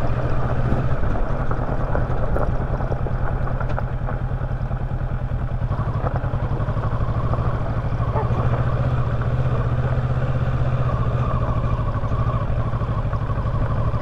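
Kawasaki Versys 650's 649 cc parallel-twin engine running steadily as the motorcycle is ridden, heard from on board.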